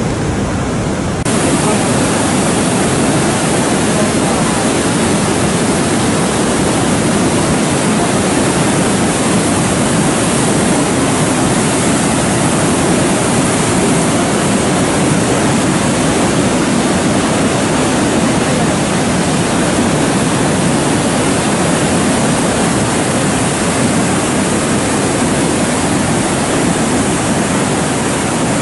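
Muddy floodwater rushing over a lake's overflow weir: a loud, steady rushing of water, which grows louder about a second in. The lake is full after heavy rain and spilling over.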